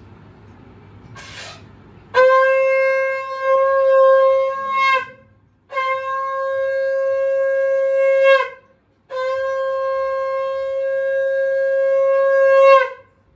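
A conch shell (shankh) is blown three times in long, steady, pitched blasts, each about three seconds, with short breaks between them. This marks the Bengali evening sandhya puja at a home shrine. The first blast wavers a little and the last swells just before it stops.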